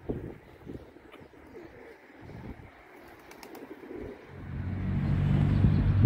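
Feral pigeons cooing softly, low coos repeating for the first few seconds. About four seconds in, a louder steady low hum rises and covers them.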